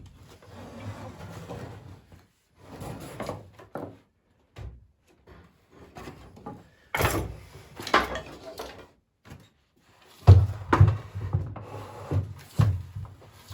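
Poplar boards and parts of a wooden porch swing being handled and moved: scattered wooden knocks and scraping of wood on wood, louder about halfway through and in a run of knocks near the end.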